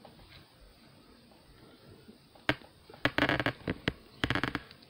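Plastic Transformers Legacy Blurr action figure being transformed by hand. Quiet for the first half, then a single sharp click about halfway in, followed by two quick runs of clicking and rattling as plastic parts are turned and snapped into place.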